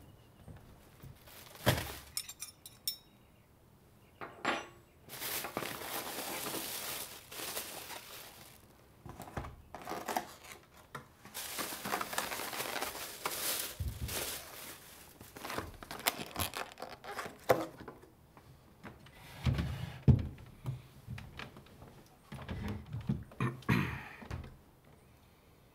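A plastic takeout bag rustling and crinkling on a wooden table as food is unpacked, in two long spells, with knocks and clinks of containers and a few dull thumps around the table near the end.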